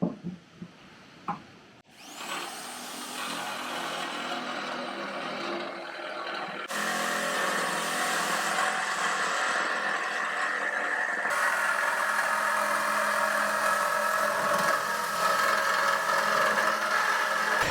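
An electric power tool cutting corrugated steel sheet. After a few knocks, the motor spins up about two seconds in with a rising whine, then runs steadily and loudly through the cut.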